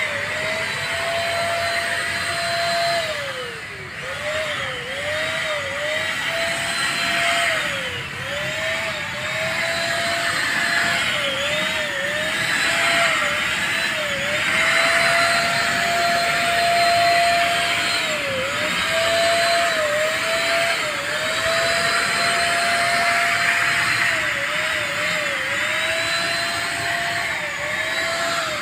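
Multipro ESP-800JY electric spray gun running while spraying thinned duco paint: a steady motor whine over a rushing hiss of air and paint. The whine's pitch dips briefly and recovers again and again.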